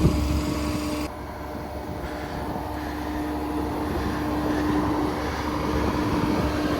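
A vehicle engine running steadily with a constant hum. About a second in, the sound abruptly becomes muffled, then gradually grows louder again.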